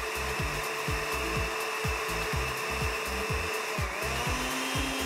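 Osterizer countertop blender running steadily, puréeing boiled strawberries in their syrup. Its motor whine dips briefly and recovers near the end.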